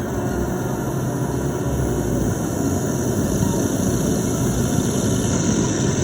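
Make Noise Strega synthesizer putting out a steady, dense, grainy noise drone, heavy in the low end, with a texture much like an idling engine.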